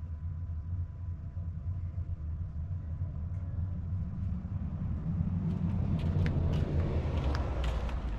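A motor vehicle's engine rumbling low and steady, growing gradually louder, with a few sharp clicks and knocks in the last few seconds.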